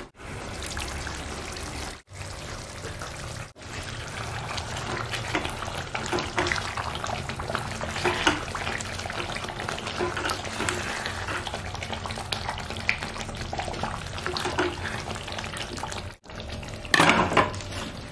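Chicken curry gravy simmering and bubbling in a stainless-steel kadai as it is cooked down, with a wooden spatula stirring through it. Near the end come a few louder clanks of a steel lid and pan.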